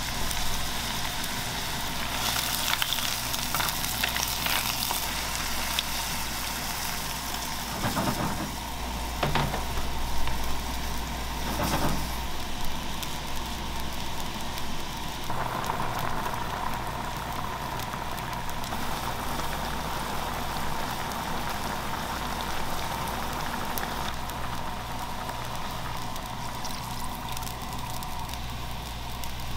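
Seafood risotto broth with mussels and prawns boiling hard in a frying pan over a gas flame, a steady bubbling sizzle over a low hum. A few short knocks come about a third of the way in.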